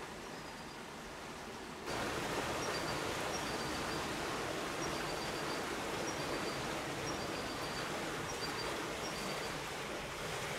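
Rushing water of a flooded, fast-flowing river, a steady hiss that gets louder about two seconds in. Faint, short, high chirps repeat through it.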